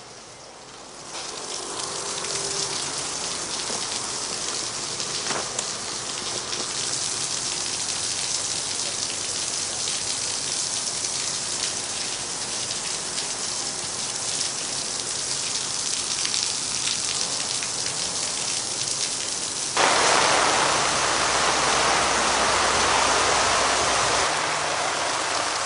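Heavy rain falling steadily. It comes in about a second in and turns suddenly louder near the end.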